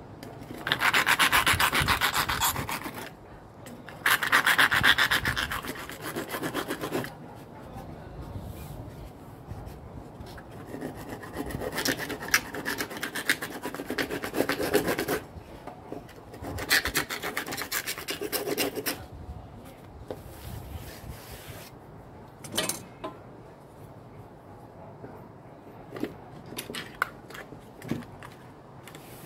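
Hand saw cutting lengthwise through an IKEA LACK shelf's thin board skin and cardboard honeycomb core, in several spells of quick rasping strokes. Near the end come only a few short knocks and clicks.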